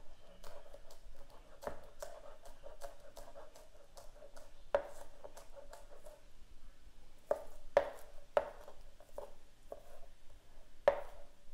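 Kitchen knife chopping scallions on a plastic cutting board: a run of quick, irregular knocks, with several louder chops in the second half.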